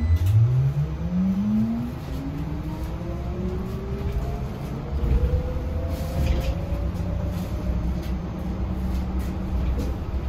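Yutong E12 battery-electric city bus heard from inside the cabin as it accelerates, its traction motor whine rising steadily in pitch for about seven seconds and then levelling off. Low road and tyre rumble runs underneath.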